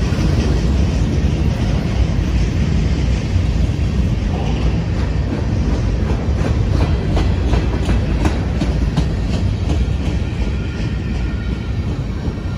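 Freight train's empty centerbeam flatcars rolling past close by: a steady rumble of wheels on rail. A run of sharp clicks comes through the middle, and it gets a little quieter near the end as the last cars pass.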